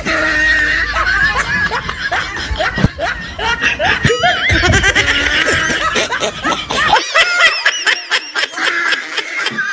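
Several people laughing and giggling together, many voices overlapping.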